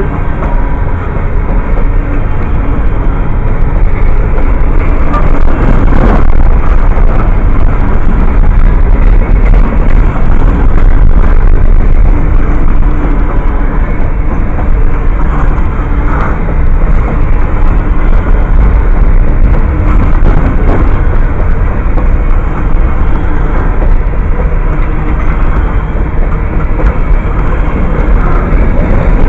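Freight train of open-top hopper cars rolling past close by: a loud, steady rumble and clatter of steel wheels on the rails.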